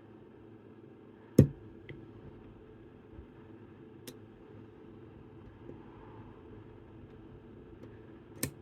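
Sharp clicks from picking a Chubb Detector lever lock with picking tools: one loud click about a second and a half in, fainter ones around two and four seconds, and another loud click near the end.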